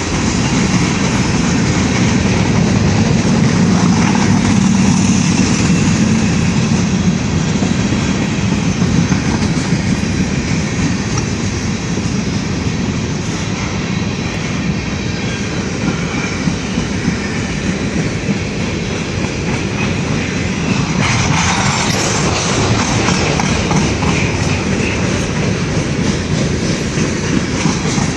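Freight train cars rolling past close by: a steady heavy rumble with continuous clickety-clack of wheels over rail joints, briefly brighter with wheel squeal about 21 seconds in.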